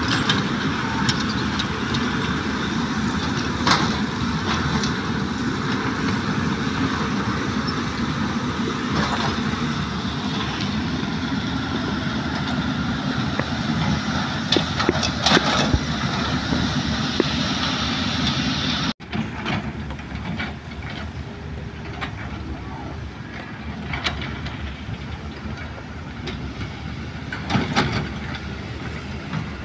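Crawler excavators' diesel engines running while digging earth, with scattered knocks of the bucket and stones. The sound breaks off sharply about two-thirds of the way through, then carries on quieter.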